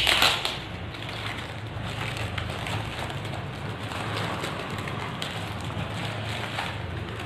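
Plastic courier bag being torn open and crumpled by hand, a louder tear right at the start, then continuous crinkling and rustling of plastic as a cardboard box is worked out of it.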